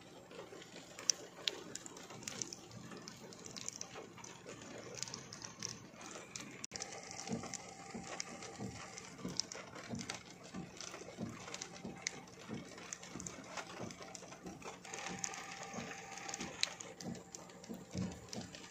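Faint, irregular tapping of raindrops, with scattered soft knocks.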